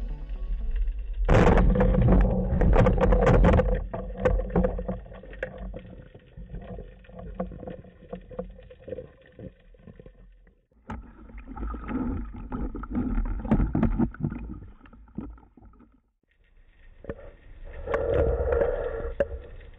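Water sloshing and rushing against an underwater camera housing as a freediving spearfisher swims, with irregular knocks and crackles. It swells loudest early on and again near the end, and drops out briefly twice.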